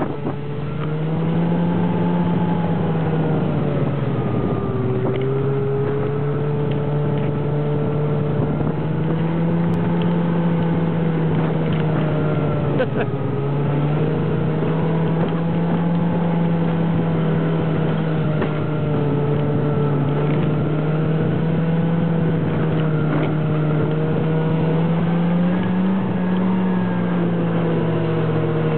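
Snowmobile engine running steadily at cruising speed, a continuous drone whose pitch rises and falls gently as the speed varies.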